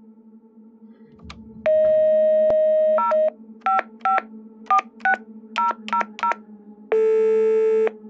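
Telephone call being placed: a steady dial tone, then a quick string of about nine touch-tone keypress beeps, then one long tone as the line rings.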